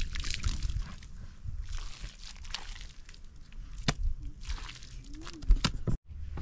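Wet mud being mixed with water: irregular sloshing and squelching, with two sharp knocks partway through.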